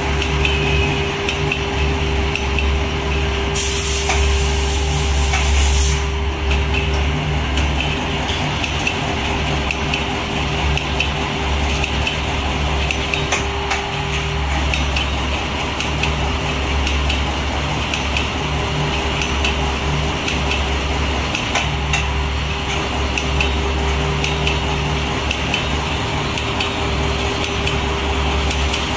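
CNC bamboo toothbrush making machine running: a steady motor hum and a constant whine that drops out for a few seconds midway. About three and a half seconds in, a hiss of compressed air from its pneumatics lasts a couple of seconds, with light clicks of the mechanism throughout.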